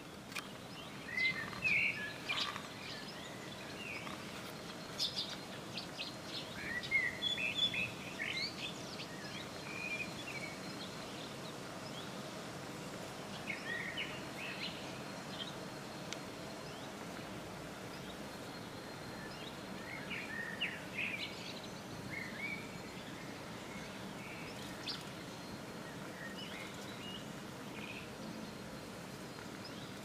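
Small birds chirping in short clusters of calls, on and off, over a steady outdoor background hiss.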